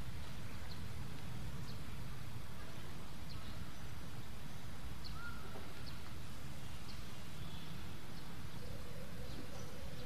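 Steady background hiss and low rumble with faint, scattered short bird chirps. A faint steady hum comes in near the end.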